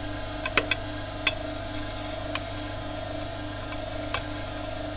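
Steady hum of a phone/tablet screen laminator's machinery, with about six light clicks and taps as a sheet and mold are positioned by hand on its metal work plate.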